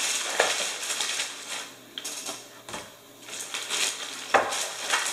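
Plastic takeout bag rustling and crinkling as food containers are pulled out of it, with a couple of sharp knocks of boxes set down on the table, one shortly after the start and one near the end.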